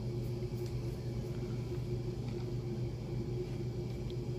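A steady low mechanical hum that does not change, with a few faint light ticks.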